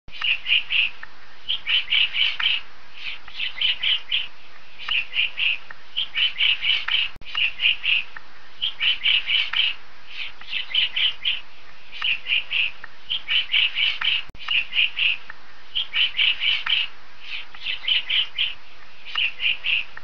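Woodpecker calling: short bursts of a few quick, high notes, repeated about once a second over steady background noise.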